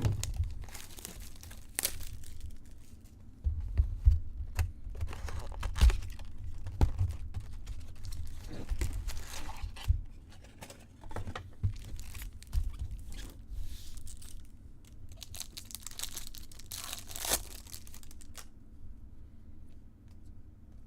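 Trading-card pack wrapper and box packaging being torn open and crinkled by hand, in irregular crackly bursts with small clicks, dying away near the end.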